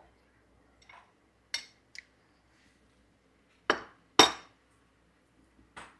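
Cutlery clinking against a dish about five times as bites of cake are taken, the two loudest clinks close together about four seconds in.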